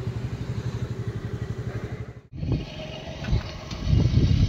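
Two-wheeler engine running steadily with a rapid pulsing beat while riding, cut off abruptly about two seconds in. After that comes uneven low rumbling.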